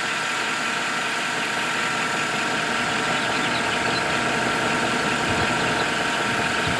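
A 2013 GMC Sierra's 5.3-litre V8 idling steadily.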